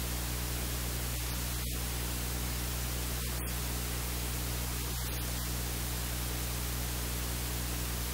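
Steady hiss and low electrical hum from the recording chain, with no other sound standing out.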